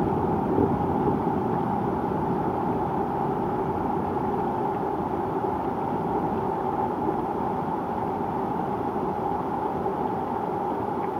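Thunder rolling on after a crack, a long low rumble that slowly fades, over steady rain.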